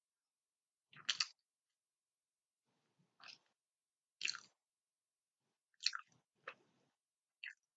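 A person chewing and biting food close to the microphone: about six short, separate mouth sounds with pauses of about a second between them.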